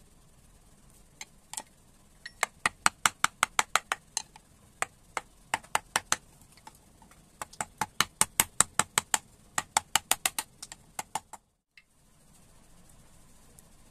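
Quick, regular taps of a wooden mallet on the handle of a carving gouge, about four a second, driving the gouge into the wood. The tapping breaks off briefly about halfway and stops about two seconds before the end.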